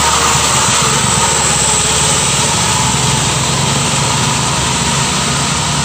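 Small diesel dump truck's engine labouring up a steep grade as it passes close by and pulls away, with motorcycle engines mixed in; a loud, steady engine noise.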